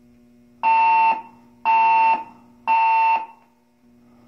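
Building fire alarm sounding three long beeps, each about half a second, one per second, then a pause: the temporal-three evacuation signal of a voice-evacuation fire alarm system, heard between its recorded announcements.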